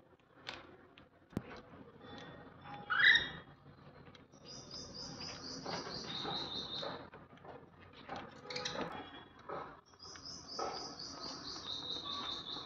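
Caged budgerigars chirping: a loud rising call about three seconds in, then two long runs of quick repeated high chirps that step down in pitch, one in the middle and one near the end.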